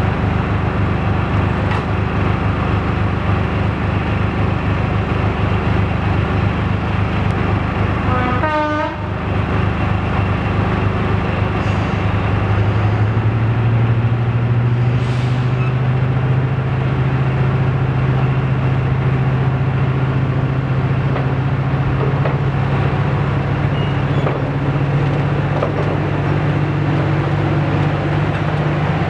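Class 55 Deltic diesel locomotive's twin Napier Deltic two-stroke engines running under power as it hauls its coaches away, a loud steady low drone over the rumble of the train on the track. The note dips briefly about nine seconds in, and from about twelve seconds in a deeper steady note grows stronger.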